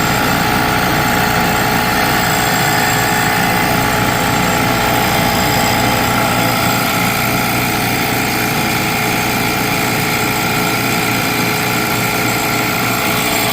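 JB F6 refrigerant recovery machine running steadily, its compressor pulling refrigerant out of the system into the recovery cylinder.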